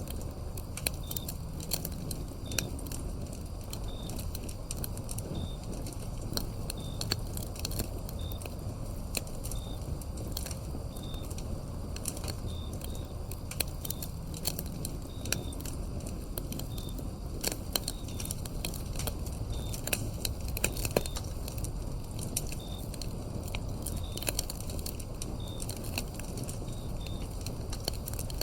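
Wood fire crackling, with frequent sharp pops and snaps over a low steady rumble of flames. A cricket chirps short high notes about once a second behind it.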